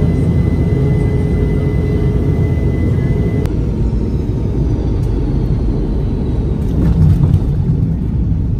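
Loud, steady rumble of a jet airliner's engines and airflow heard inside the passenger cabin, with a thin steady high whine that stops at a cut about three and a half seconds in. After the cut, the cabin rumble of the airliner rolling along the runway, briefly louder about seven seconds in.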